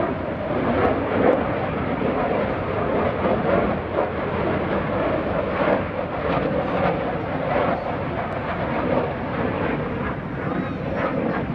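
F-35C Lightning II's single F135 afterburning turbofan: steady, loud jet noise with occasional crackles.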